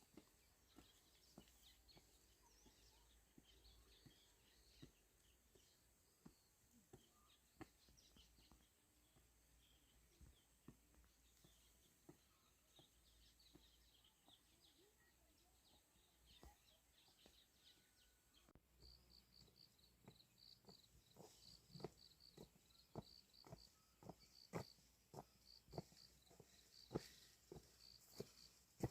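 Faint outdoor ambience with scattered high chirping calls. About two-thirds in the sound changes: a rapid, even run of high chirps begins, along with a series of soft knocks that grow louder, one or two a second.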